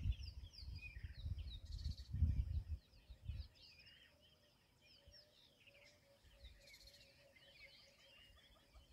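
Birds chirping and calling in the bush, many short high chirps overlapping. A low rumble sits under them for the first few seconds and then fades out.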